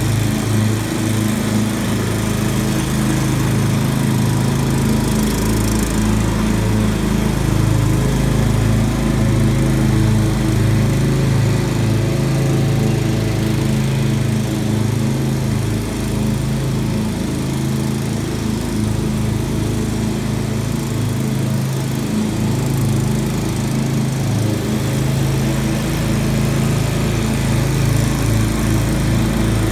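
Walk-behind commercial lawn mower's engine running steadily as it cuts grass, with an even, pulsing hum.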